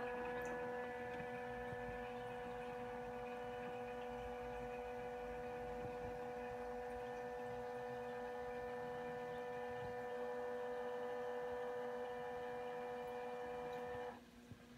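A reef aquarium pump gives a steady electric hum with several even overtones over a fainter constant low hum. The main hum cuts off suddenly near the end, like a pump or wavemaker switching off.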